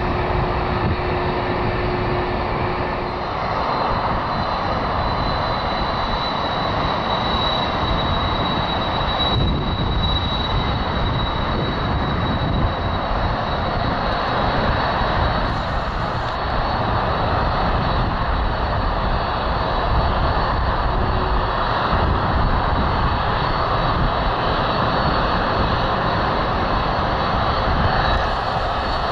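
Boeing 767 freighter's twin turbofan engines running at taxi power: a steady jet rumble and hiss, with a faint high whine through the first half.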